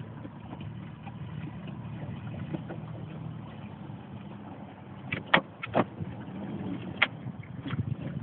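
Small outboard motor on a following boat running steadily at low speed, a low even hum. A few sharp knocks sound about five to seven seconds in.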